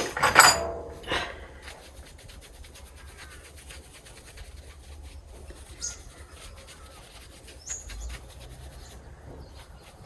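Faint rubbing and light clicking of hand handling, with a brief louder noise at the very start and two short sharp clicks later; no grinder is running.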